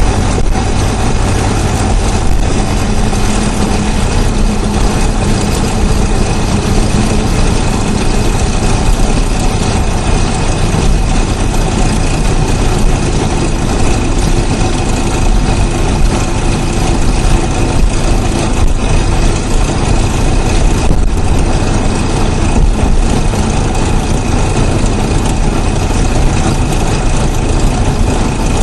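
GM LS4 5.3-litre V8 running steadily, close-miked under the hood, with a fast chatter over the engine note. The owner takes the chatter for a worsening Displacement on Demand problem, though he has been told it may be normal, and he has ruled out an exhaust leak.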